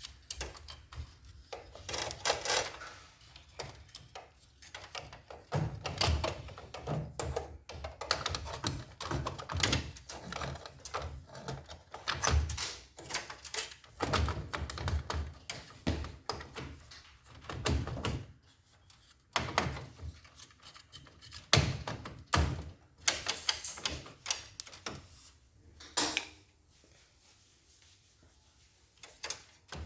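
Irregular knocks, clicks and rattles of metal and plastic parts being handled and fitted while a copier's main drive motor assembly is put back together, quieter for the last few seconds.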